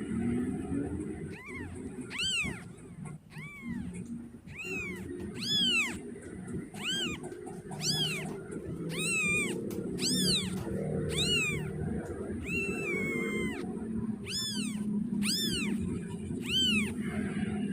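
A young kitten mewing repeatedly, about one high-pitched mew a second, each rising and then falling in pitch, with one longer, flatter cry about two-thirds of the way through: a kitten crying for its mother.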